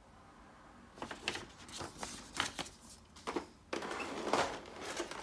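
Paper instruction sheet and clear plastic blister tray being handled, rustling and crinkling in irregular strokes that start about a second in and grow denser near the end.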